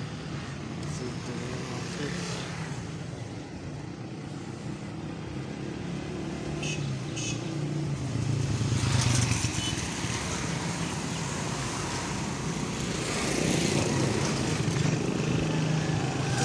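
Street traffic: motorcycles and cars running past on the road, with passes that grow louder about halfway through and again near the end. Two short high beeps sound about seven seconds in.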